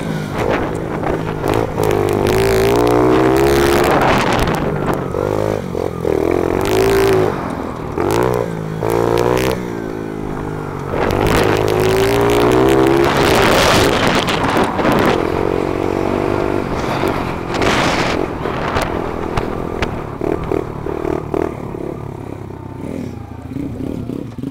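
Four-stroke single-cylinder pit bike engine with an FMF exhaust, revving up and falling back over and over as the rider works the throttle through a lap of a dirt track, with wind noise on the helmet-mounted microphone. Over the last few seconds the engine drops to a lower, quieter note as the bike slows.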